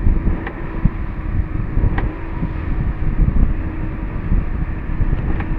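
Wind buffeting the microphone over the steady drone of a boat's engine running under way, with a few faint ticks.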